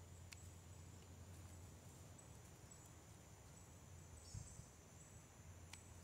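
Near silence: two faint sharp snips of scissors cutting bee balm stems, one just after the start and one near the end, over a steady low hum.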